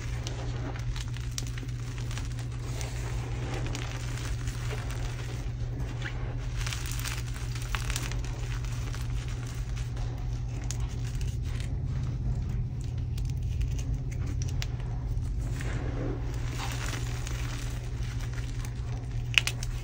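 Hands squeezing and grinding through a heap of crumbled dyed gym chalk: a steady soft crunching and crackling of powder and small chunks, with one sharp snap near the end.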